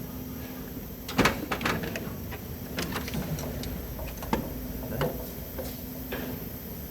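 Irregular metallic clicks and knocks of tools and parts being handled during engine-bay reassembly, loudest just after a second in, over a steady low hum.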